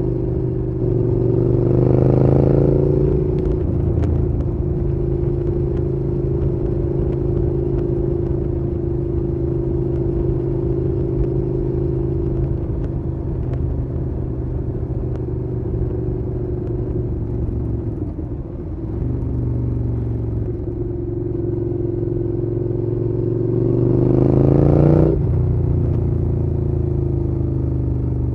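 Suzuki Gladius 650's 645 cc V-twin engine running at a steady speed, revving up twice, about two seconds in and again near the end, each time rising in pitch and then falling away suddenly.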